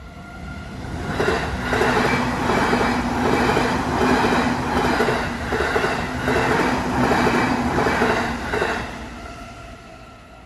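An electric train on the JR Chūō Line passing a level crossing, its wheels clacking over rail joints in a steady rhythm for about eight seconds. It builds in about a second in and dies away near the end. The crossing's warning bell rings steadily before and after the train.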